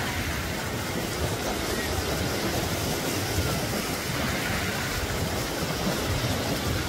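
Steady wind noise on the microphone mixed with beach surf, with indistinct voices in the background.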